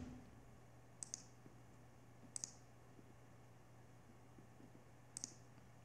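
Computer mouse clicking three times, each click a quick double tick, at about one, two and a half and five seconds in, over a faint steady low hum.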